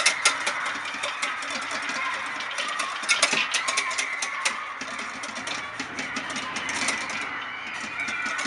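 Wire balloon whisk beating cream by hand in a plastic bowl: a rapid, rhythmic clatter of the wires striking and scraping the bowl, several strokes a second.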